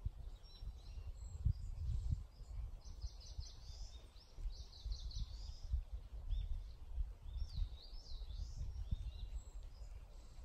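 Wind buffeting the microphone in uneven gusts, with small songbirds singing above it. There is a quick run of high repeated notes about three to five seconds in, and swooping up-and-down notes later on.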